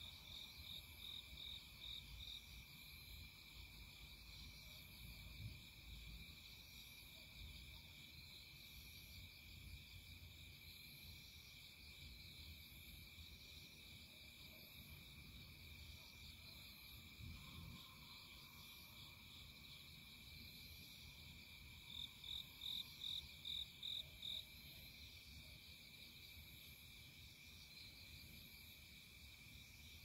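Faint insect chorus in the countryside: a steady high trill under rows of quick repeated chirps. A nearer insect gives a louder run of about seven chirps, roughly three a second, about 22 seconds in.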